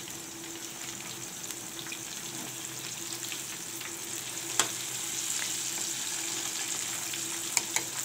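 Besan pakoras deep-frying in hot oil in a metal kadai: a steady sizzle with crackling as a slotted spoon stirs them, and one sharp tap about halfway through.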